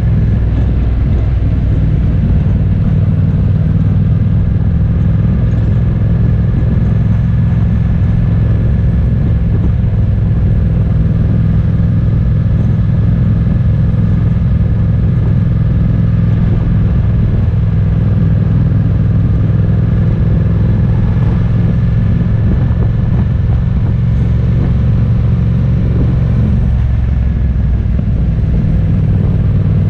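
A vehicle's engine and road noise as it drives along: a loud, steady low drone that holds its pitch, with a faint steady whine above it.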